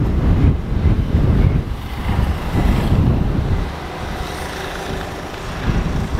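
Wind buffeting the microphone in gusts, over the faint, steady rumble of an approaching freight train: an EF65 electric locomotive hauling oil tank wagons.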